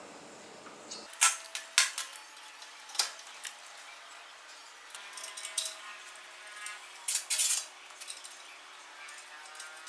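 Metal parts being handled: a series of sharp clinks and knocks with brief ringing, loudest just after a second in and again around seven seconds.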